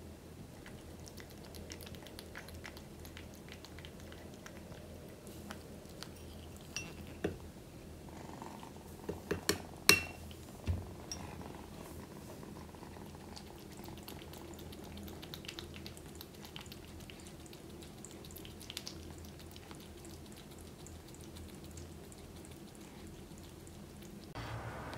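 Kitten eating wet food from a ceramic bowl: soft licking and smacking clicks, with a few sharper knocks about ten seconds in.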